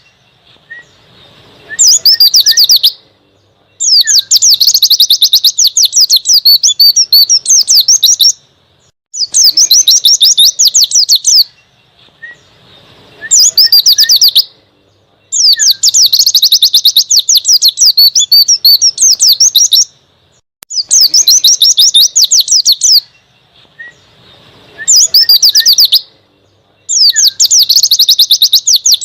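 White-eye (pleci) song in the wild 'ngalas' style: fast, chattering runs of very high notes in bursts of one to three seconds, over and over with short pauses between. This is a songbird training recording (masteran).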